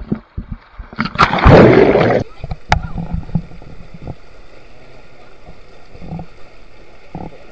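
A rider shooting off the end of a water slide into the pool: rushing water and a loud splash lasting about a second, which cuts off abruptly to a steady, quieter outdoor hiss.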